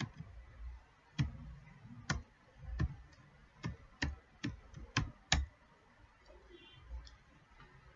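Computer keyboard being typed on: about ten separate, unevenly spaced keystrokes in the first five seconds or so, then the typing stops.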